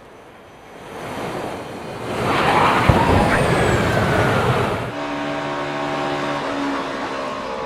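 NASCAR stock-car crash: a loud rush of noise that swells in over two seconds, with one sharp hit about three seconds in. It changes abruptly about five seconds in to V8 stock-car engines running steadily.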